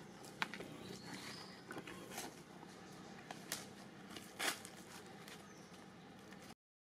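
Scattered crackles and rustles of dry fallen leaves as a young macaque walks over the leaf litter, a few sharp ones standing out, over a faint steady hum.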